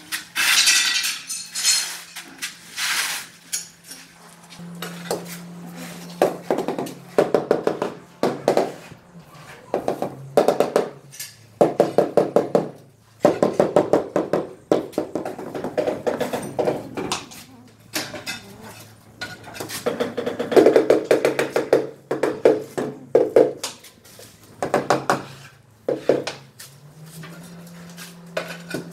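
Floor tiles being set in thinset mortar: scraping of a steel notched trowel in the first few seconds, then repeated bursts of quick taps and knocks as the tiles are tapped down and seated.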